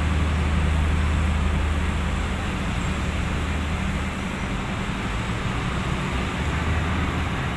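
Diesel railcar running along the track and moving away, its engine and wheels making a steady low rumble that eases a little about halfway through.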